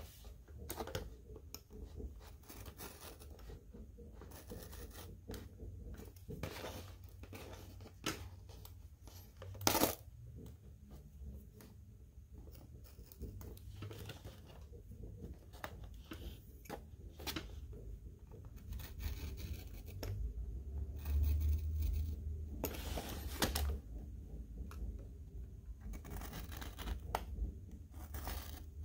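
Hobby knife slicing through clear tape on a cardboard backing to free clear plastic pieces: irregular small scratches, clicks and crinkles of tape and card, with a sharper click about ten seconds in.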